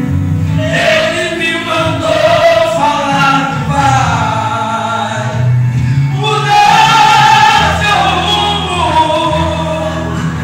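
A man singing a gospel hymn into a microphone through a church PA, over a sustained low accompaniment. The song runs in two long sung phrases with a short breath between them about five and a half seconds in.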